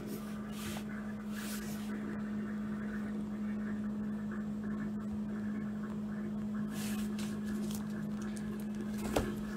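Quiet room tone with a steady hum, and a few faint rustles from a paperback picture book being handled, the clearest near the end.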